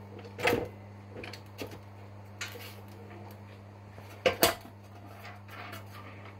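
Scattered metallic clinks and knocks from steel tool parts and sheet steel being handled, as a hydraulic punch-and-dimple die set is taken off a freshly dimpled hole. The loudest is a pair of sharp knocks about four seconds in, over a steady low hum.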